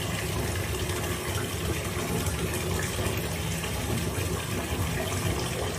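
A steady rushing noise with a low rumble underneath, unbroken throughout.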